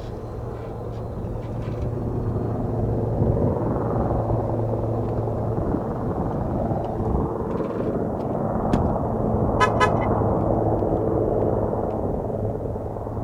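Sikorsky S-76C helicopter departing, its rotor and twin turbines making a steady low hum with stacked tones above it. The sound swells over the first few seconds and stays loud. About ten seconds in there is a brief run of rapid ticks.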